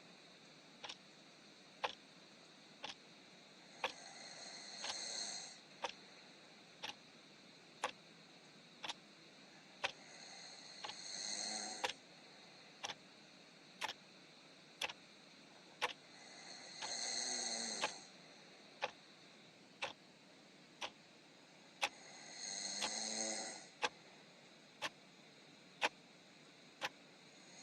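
Soft snoring, one drawn-out snore about every six seconds, four in all. A clock ticks once a second behind it.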